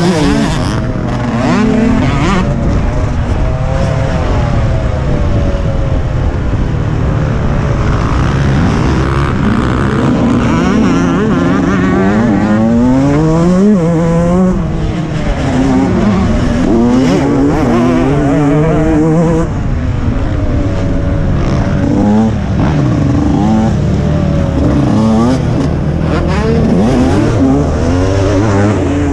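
TM 125 MX two-stroke motocross engine revving hard and dropping back again and again through gear changes and throttle work, heard on board from the rider's helmet camera with wind rushing underneath.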